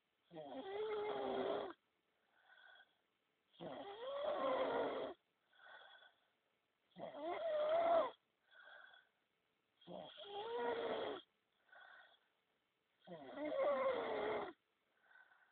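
A man snoring loudly in an even rhythm after heavy drinking. Five long snores come about three seconds apart, each with a short, faint breath sound between them.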